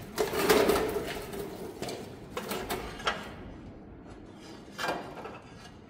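A steel plate being handled and fitted against a truck's frame rail: a run of metal scrapes and knocks for about three seconds, then a single clank near the end.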